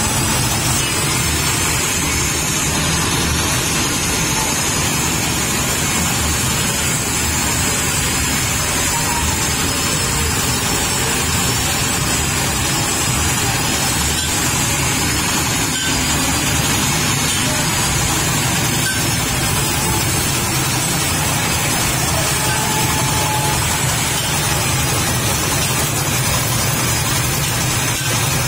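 Sago trunk grating machine running steadily, its motor and spinning toothed drum shredding pieces of split sago trunk into pulp as they are pushed against it.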